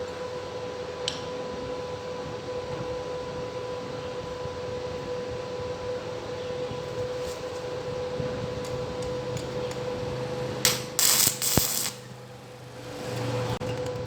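Electric workshop power tool motor running with a steady whine, broken by a few loud rasping bursts of metalwork a little after ten seconds in.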